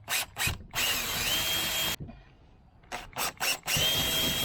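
Power drill boring holes in a kayak for a rod holder mount. The trigger is blipped twice and then held for about a second, its motor whine rising and settling; the same pattern repeats about halfway through.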